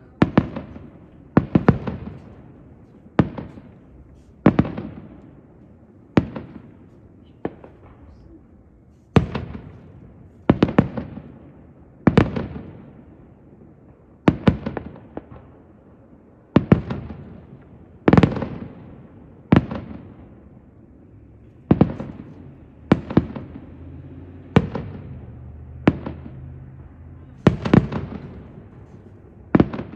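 Distant aerial firework shells bursting, a sharp boom every second or two. Each boom trails off in a rolling echo.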